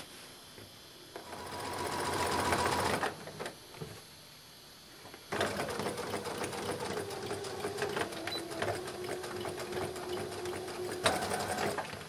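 Electric domestic sewing machine straight-stitching through a folded fabric hem: a short run of about two seconds, a pause, then a longer steady run of about six seconds, its motor hum settling slightly lower in pitch before it stops.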